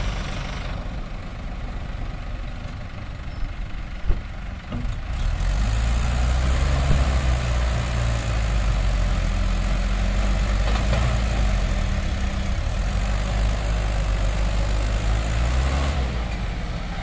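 Diesel engines of a Mahindra 575 DI tractor and a JCB backhoe loader working under load as the loader's bucket pushes the stuck, loaded trolley out of the mud. The engine sound grows louder about five seconds in and stays up, with a single knock shortly before.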